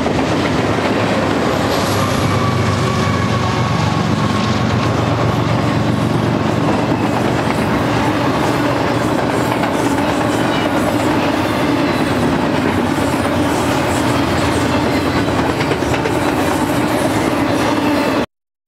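Freight train cars rolling past on the rails, a steady loud rumble with clickety-clack of wheels over the rail joints and a faint wheel squeal a couple of seconds in. The sound cuts off suddenly just before the end.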